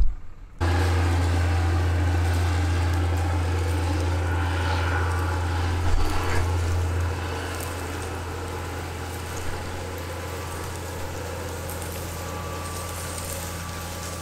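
Case IH Quadtrac tractor running steadily as it pulls a SeedMaster air drill, a heavy low rumble with a steady machine drone over it; the rumble eases about halfway through.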